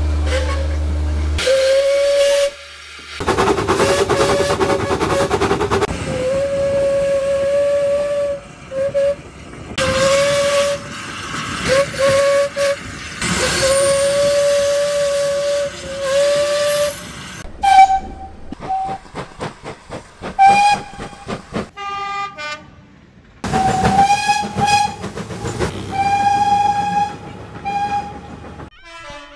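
Steam locomotive whistles blown in a long series of short and long blasts over the hiss of steam. About two-thirds of the way through, a higher-pitched whistle takes over with more blasts, with rapid rhythmic beats between them.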